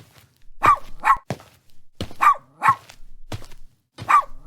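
A puppy barking in quick pairs of short yaps, three pairs about a couple of seconds apart.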